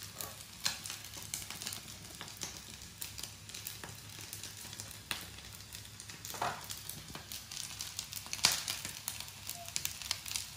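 A crispy corn mixture frying in oil in a frying pan, sizzling and crackling steadily with many small pops, and a spatula now and then scraping and pressing it in the pan.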